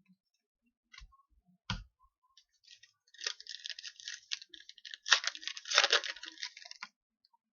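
Two light clicks, then about four seconds of crinkling and tearing as a foil trading-card pack wrapper is torn open, loudest near the end.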